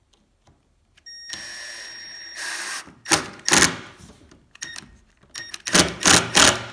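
Cordless drill-driver running with a steady whine, then driving a screw into a glued wooden handrail return in a series of short, loud bursts, coming thicker near the end as the screw bites and draws the piece tight.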